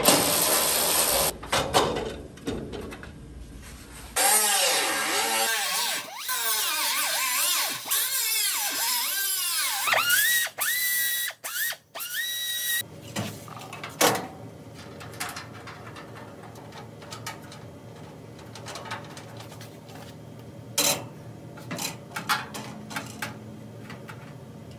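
Hand-held air tool cutting out the steel center support of a Chevy C10's radiator support, its pitch sliding up and down as it bites into the metal. It spins up to a steady high whine and stops about halfway through. After that come scattered metal clicks and knocks as parts are handled.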